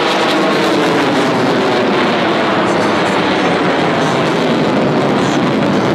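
Loud, steady jet noise of an F-35 fighter flying overhead, from its single afterburning turbofan engine.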